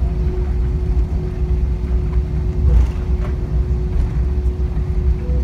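Airbus A320 cabin noise while taxiing at low speed: the jet engines at idle and the rolling airframe make a steady low rumble, with a thin steady hum over it.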